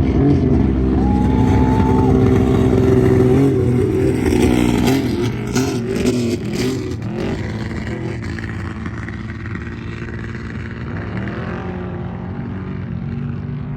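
Off-road race vehicle's engine at high revs, the pitch rising and falling with the throttle, then running quieter from about halfway through as it pulls away.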